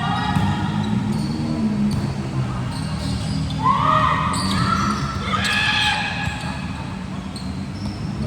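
Ball being struck and bouncing on an indoor court during a volleyball game, with repeated sharp hits and players' shouts echoing in a large hall; the loudest shout comes about halfway through.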